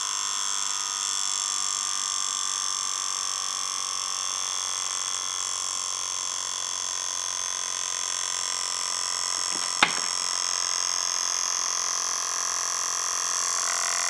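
Homemade reed-switch motor running steadily on 6 volts: a continuous high buzz of the spinning rotor and the rapidly clicking reed switch, at its slower no-core speed of about 2500 RPM now that the iron core is out of the coil. One sharp knock about ten seconds in.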